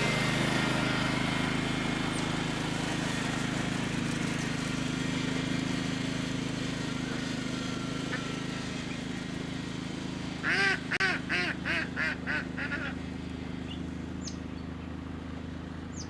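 Waterfowl giving a quick run of about eight honking calls, about ten seconds in, over a steady low hum and hiss.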